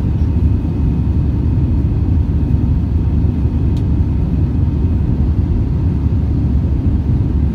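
Steady low rumble inside the cabin of an Airbus A320-214 climbing after takeoff, from its CFM56 engines and the air rushing past the fuselage, with a faint steady whine above it.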